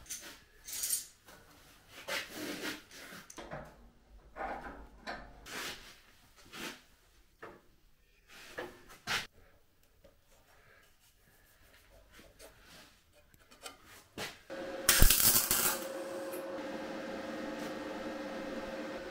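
Scattered short rubbing and scraping sounds of hand work, then a quiet gap. Near the end a steady hiss with a low hum starts suddenly, loudest at its start.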